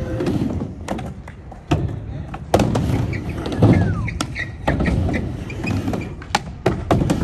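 Skateboard rolling on a skatepark ramp, its wheels rumbling, with several sharp clacks of the board and trucks hitting the ramp.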